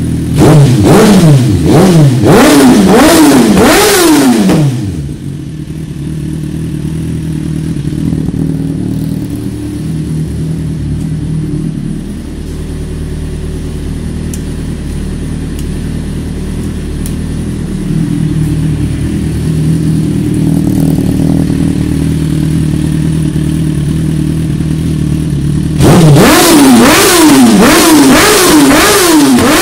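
Suzuki GSX-R1000 K7's inline-four engine, loud through a carbon Scorpion exhaust with the baffle removed: revved hard several times in quick succession, then idling steadily for about twenty seconds, then blipped rapidly again near the end.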